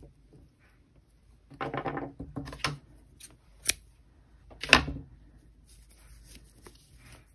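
Small handling sounds of fastening off a crocheted piece: faint rustling of yarn and fingers, with two sharp clicks about a second apart near the middle, the second louder.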